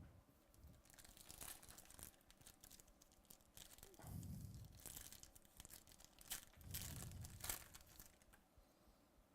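Foil trading-card pack wrapper being torn open and crinkled in the hands, in several short crackly rips, with a few dull low bumps of handling.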